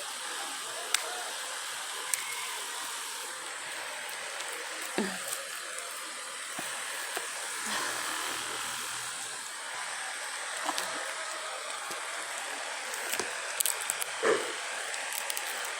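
Plastic wrapping being worked off a notebook: scattered crinkles and clicks over a steady hiss.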